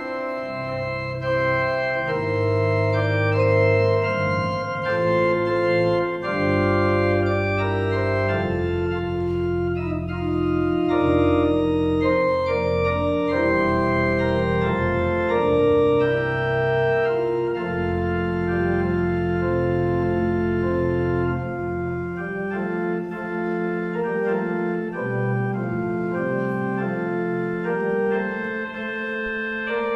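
Organ playing a slow worship song in sustained chords, with a deep pedal bass that drops out about two-thirds of the way through.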